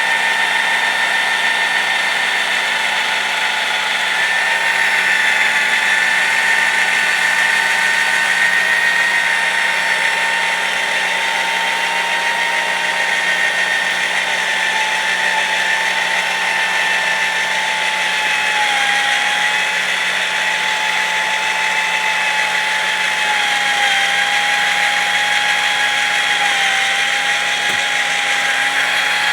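Electric drill running steadily at low speed, spinning a circular saw blade on a threaded rod through sand and cleaning fluid to scrub pitch off the teeth. Its whine holds a steady pitch, sagging slightly now and then in the second half.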